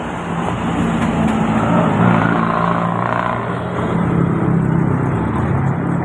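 A motor running steadily with a low, droning hum, amid street noise.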